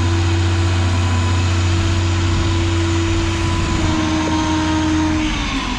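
Truck crane's diesel engine running steadily at raised revs, as for a lift, then slowing and dropping in pitch near the end.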